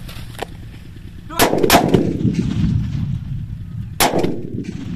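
Firecrackers going off: two sharp bangs close together about a second and a half in, then a third about four seconds in, each trailing off in a long, low rumble.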